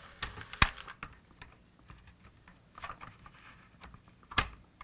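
Scattered light clicks and taps of small plastic parts being handled on a vintage toy car, with a sharper click about half a second in and another near the end.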